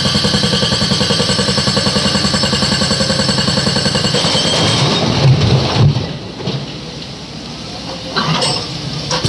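Crawler excavator's diesel engine and hydraulics working hard with a rapid, even pulse as a bucket of rock is lifted and swung. About five seconds in, a load of rock tumbles into a tipper truck's steel body with heavy thuds, the loudest part. Then the engine runs quieter as the arm swings back.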